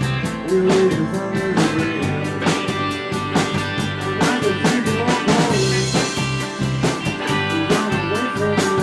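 Rock band playing a bluesy, psychedelic-rock song: a steady drum beat under bass and bending guitar lines, with a cymbal crash about five and a half seconds in.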